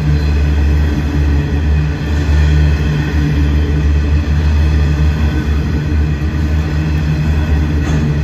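A freight train's hopper wagons rolling past at speed: steady, loud wheel-on-rail noise with a strong low rumble.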